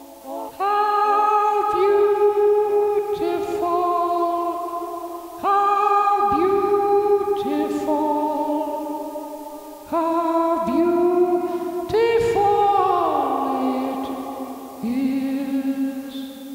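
Electronic choir-like chords played on a lit pad controller: five sustained chords, each entering sharply and slowly fading, the fourth sliding down in pitch.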